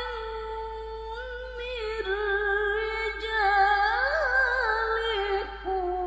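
A woman reciting the Qur'an in the melodic tilawah style into a microphone. She holds one long, high, ornamented vocal line with wavering turns, climbs to a higher note about four seconds in, then falls and fades near the end of the phrase.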